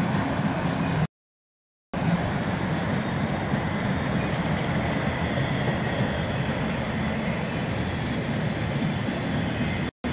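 Freight train of autorack cars rolling past at close range: a steady rumble and rattle of wheels on rail that holds an even level. The sound drops out completely for under a second about a second in.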